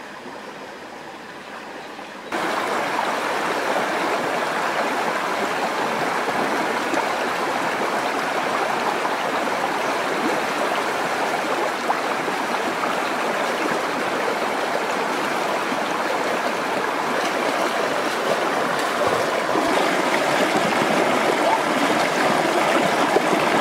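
Steady rush of flowing water, which jumps suddenly louder about two seconds in.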